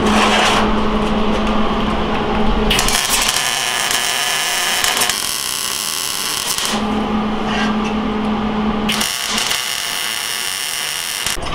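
MIG welder laying welds on a steel jig: two stretches of arc crackle, the first starting about three seconds in and the second near the end. A steady low hum fills the pauses between them.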